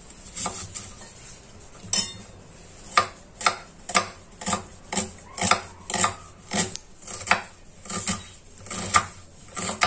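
Kitchen knife cutting a red onion on a wooden cutting board: a few separate cuts, then steady chopping knocks about twice a second as the onion is diced.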